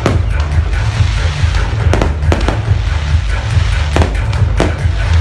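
Fireworks going off in separate sharp bangs, about six in five seconds at irregular intervals, over loud music with a heavy, steady bass.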